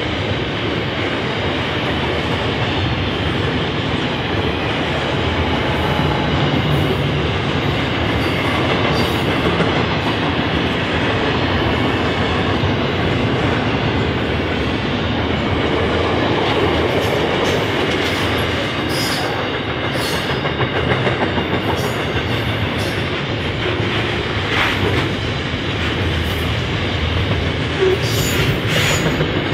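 Intermodal container freight train's wagons rolling past, a steady rumble of steel wheels on rail with scattered sharp clicks from the wheels. The last wagons go by near the end.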